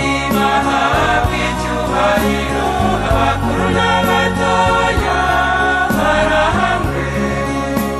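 Choir singing a Catholic hymn to the Virgin Mary in Kinyarwanda, with accompaniment holding sustained bass notes that change about once a second.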